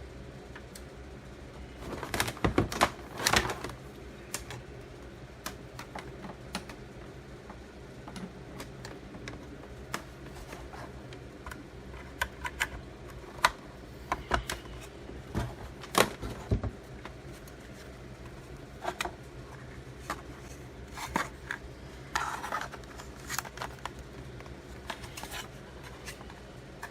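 Irregular clicks, taps and knocks of hard plastic hardware being handled and fitted together, in small clusters with pauses between, over a steady low hum.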